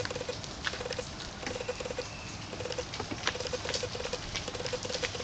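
Water dripping and pattering onto wet ground and leaves after a hailstorm, in scattered sharp drops. Over it, a low, rapid stuttering call repeats in short bursts about once a second.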